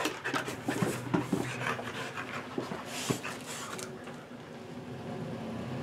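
Dog panting, with scattered light knocks and rustling as it climbs into a storage box and the lid closes over it during the first few seconds; quieter after that.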